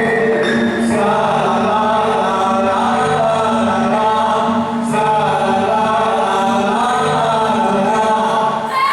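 Dance accompaniment music: a group of voices chanting together over steady, sustained instrumental tones, with the voices coming in about a second in.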